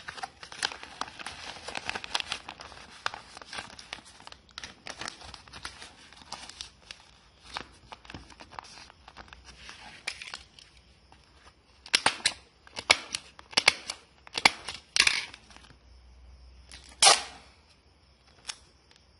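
Packaging being handled and wrapped by hand: continuous crinkling and crackling, then, about twelve seconds in, a run of sharp tearing strokes, with one louder, longer tear a couple of seconds later.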